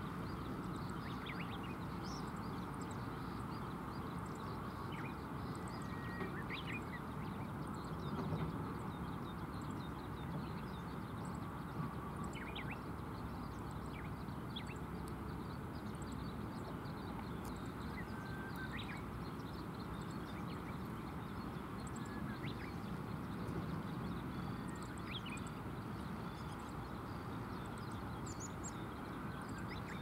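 Steady low outdoor rush by a river, with faint, short chirps from small birds scattered throughout.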